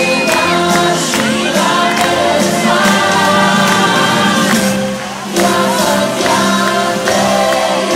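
Live pop music with a large group of singers singing together over the band, loud and continuous, dipping briefly about five seconds in.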